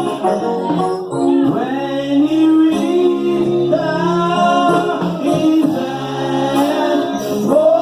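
Gospel hymn sung by a man with other voices joining, held notes sliding between pitches, over sustained keyboard chords.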